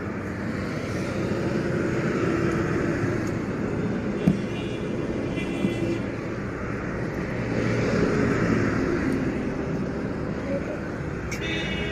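Road traffic going by, vehicles swelling past about two seconds in and again about eight seconds in. A single sharp knock comes a little after four seconds.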